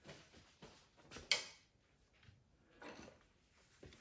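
Metal transmission parts and hand tools being handled on the bench: a few light clinks and rustles, with one sharper knock about a second and a half in.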